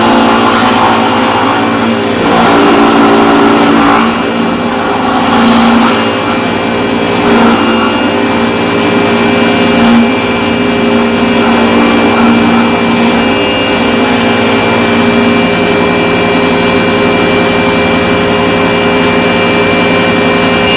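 A power carving tool's motor runs steadily as it cuts timber, with a continuous drone that swells and eases a few times in the first half as it bites into the wood.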